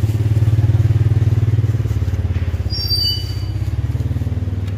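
A small engine idling close by: a low, fast-pulsing rumble that eases a little after about three seconds. A brief high-pitched squeak sounds about three seconds in.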